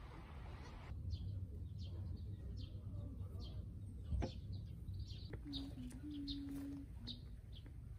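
Small birds chirping, short high calls repeating every fraction of a second over a low rumble, with a few low steady hooting notes after about five seconds.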